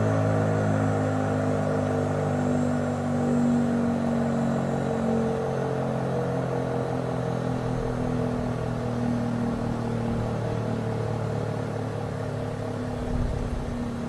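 ACA P-15 rotating outdoor warning siren sounding a steady tone that slowly grows fainter.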